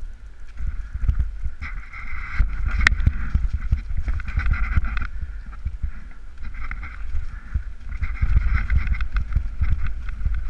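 Mountain bike riding down a forest singletrack, heard from a bike- or rider-mounted camera: a jostling rumble on the microphone, many small knocks and rattles over the rough trail, and a higher buzzing that comes and goes in stretches.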